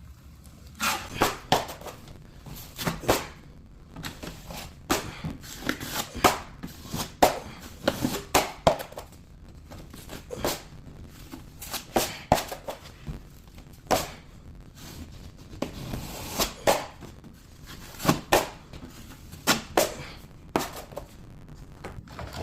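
Metal drywall knife spreading a second coat of joint compound over a patch: a run of short, irregular scraping strokes and clicks of the blade.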